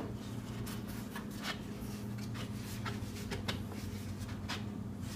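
Light wooden clicks and rubbing as a pine panel is dry-fitted into the dresser's back frame by hand, over a steady low hum.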